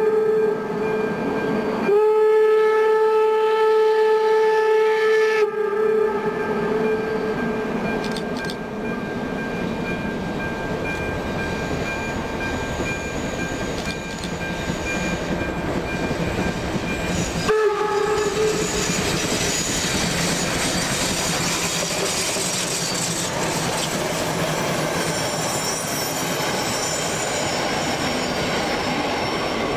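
Steam locomotive whistling: a blast cut off right at the start, a long blast of about three seconds, then a short toot well past halfway. Between and after the whistles the locomotive and its train approach and pass close by, running steadily on the rails.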